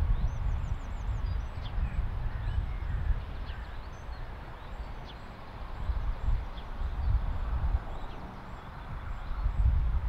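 Wind buffeting the microphone in an uneven low rumble that swells and fades, with small songbirds chirping faintly and a quick high trill about half a second in.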